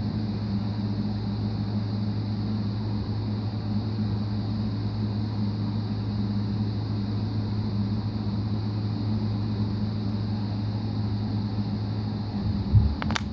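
A steady, low machine hum with a faint hiss above it. Near the end, slime squished in the hands gives a few crackles.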